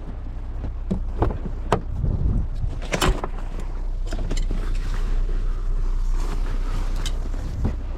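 A vehicle engine running with a steady low rumble that grows louder over the first few seconds, with scattered sharp clicks and knocks on top.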